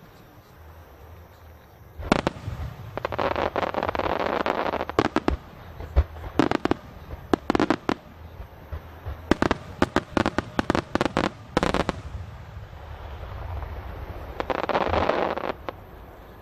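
Aerial fireworks shells bursting: after a quiet first two seconds, a string of sharp booms, several in a rapid cluster about two-thirds of the way through, with long stretches of dense hiss between them and another near the end.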